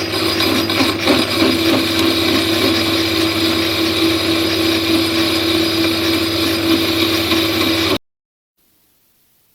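Electric machine-tool motor running steadily under power, a constant hum with overtones over a rough mechanical noise; it stops abruptly about eight seconds in.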